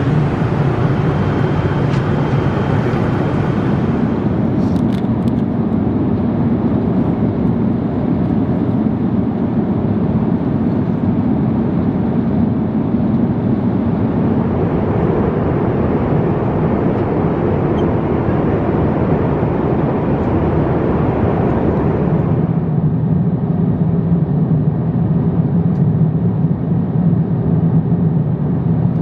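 Steady cabin noise of an Airbus A350-900ULR airliner in cruise: the even hiss and rumble of airflow and engines. Its tone shifts slightly about four seconds in and again about three quarters of the way through.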